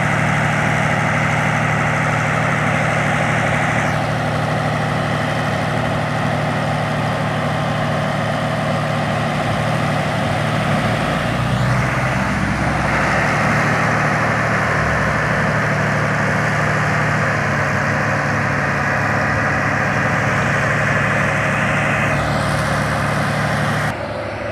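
Heavy vehicle engine running steadily with a low hum, its tone shifting abruptly a few times; the level drops suddenly near the end.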